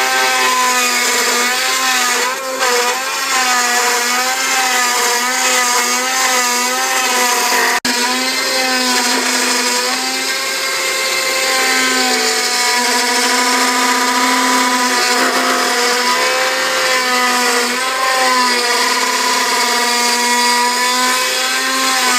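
Bravo Prodegy 3030 CNC router's spindle running with its bit cutting a deep profile groove through a wooden board: a loud, steady whine whose pitch wavers slightly as the bit works through the wood.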